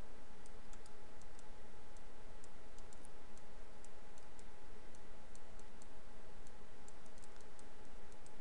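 Scattered, irregular computer mouse clicks over a steady hiss with a faint steady tone in the background.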